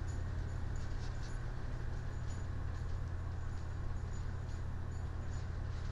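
Steady low hum with a background hiss, unchanging throughout: the recording's background noise, with only a few faint ticks.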